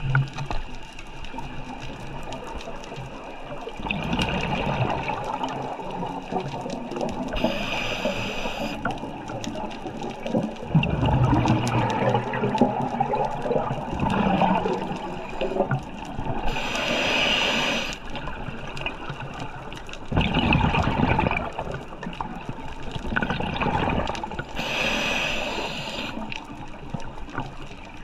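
Scuba diver breathing through a regulator: slow breaths about every eight seconds, each a short hissing inhale followed by a long rush of gurgling exhaust bubbles.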